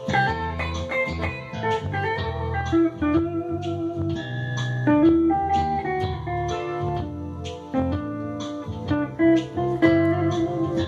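Ibanez S770 electric guitar played through a Marshall MG100DFX amp: single-note lead lines with the notes changing several times a second, over held low notes.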